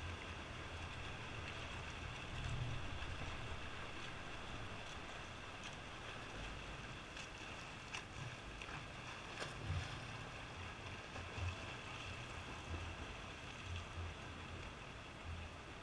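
Swimming-pool water splashing and lapping against the wall below the starting block, with swimmers' splashing fading as they swim off down the lanes. Irregular low rumbles of wind on the microphone come and go.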